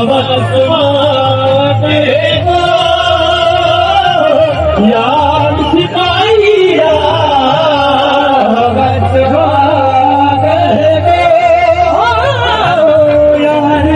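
A man singing a Saraiki Sufi kalam in long held, wavering notes over instrumental accompaniment.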